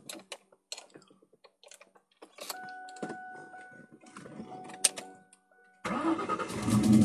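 Keys rattling and clicking, then a steady electronic warning tone sounds, and about six seconds in the 2000 Ford Mustang GT's 4.6-litre V8 cranks and fires up, running louder and louder. The owner's scanner reports a misfire on cylinder 7.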